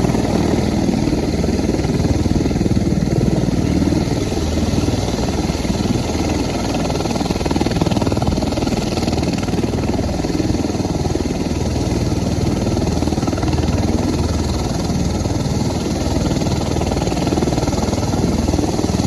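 CV-22 Osprey tiltrotor's twin Rolls-Royce AE 1107C turboshaft engines and proprotors running steadily while the aircraft taxis.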